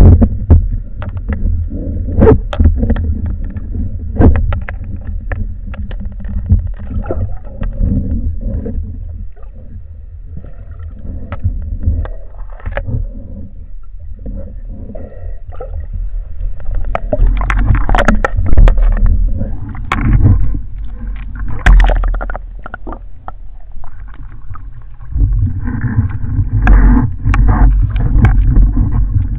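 Muffled underwater noise picked up by a camera housing on a wooden speargun: a low water rumble with many sharp knocks and clicks as the gun and line are handled, swelling louder in bursts in the second half.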